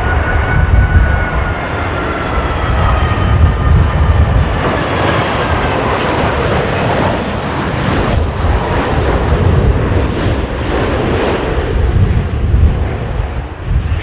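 Air New Zealand Boeing 787-9 on short final, its Rolls-Royce Trent 1000 jet engines passing low with a whine that slowly falls in pitch as the plane goes by. Beneath it is a heavy, uneven low rumble of gusty crosswind buffeting the microphone.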